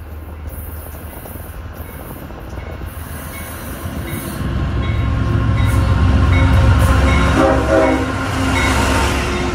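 A CSX diesel freight locomotive approaches and passes close by, its engine rumble building to a loud peak. A brief horn sound comes about three quarters of the way through.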